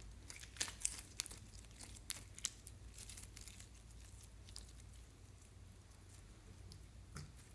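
Sticky clear orange slime crackling and clicking as it is stretched and squeezed by hand and pressed into clear glitter slime. The sharp little pops come thickly in the first three seconds, then thin out to a few faint ones.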